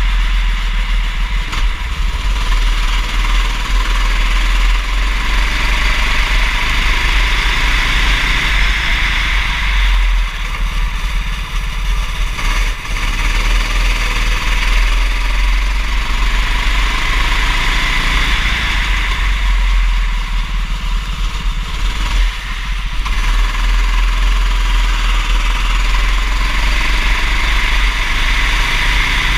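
Racing kart engine running under load, its pitch rising and falling as it accelerates and backs off through the corners, over a steady low rumble and hiss. It eases off briefly twice.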